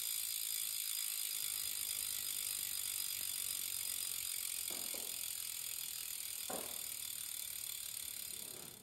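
Rear hub of a road bike freewheeling as the rear wheel spins, the pawls clicking so fast they run together into a steady buzz that fades out near the end.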